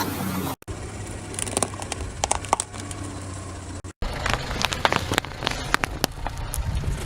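Car engine running low under scattered crackling and snapping as a tyre rolls over and crushes objects. The sound breaks off abruptly about half a second and four seconds in, where clips are cut together.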